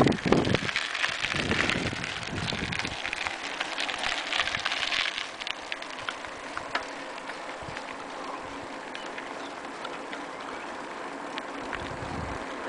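Wind buffeting the microphone over the hiss of bicycle tyres rolling on rough tarmac, loudest in the first few seconds and then settling to a steadier, quieter rush with scattered light clicks.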